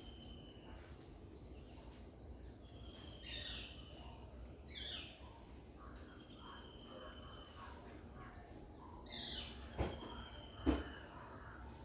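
Birds calling: three short chirps that fall in pitch, with a thin, steady whistle-like note that comes and goes for about a second at a time. Two sharp taps near the end.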